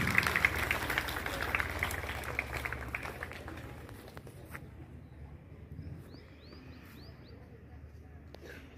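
Audience applause dying away over the first three or four seconds, then a small bird chirping a quick run of about five short calls.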